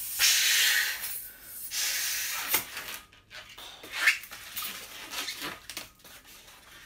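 A long latex modeling balloon being blown up by mouth: two long, hard blows of rushing air in the first few seconds, filling it nearly full and leaving an uninflated tail about two fingers long. Afterwards the latex squeaks and rubs as the inflated balloon is handled.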